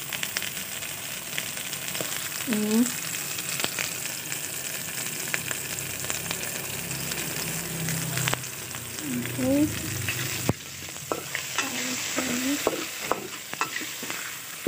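Shredded chicken with chillies and seasoning sizzling in hot oil in a stainless-steel pan, stirred with a metal spatula that scrapes and clicks against the pan over and over.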